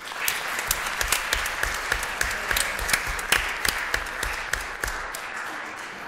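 Audience applauding. One pair of hands near the microphone stands out with about three claps a second. The applause dies away near the end.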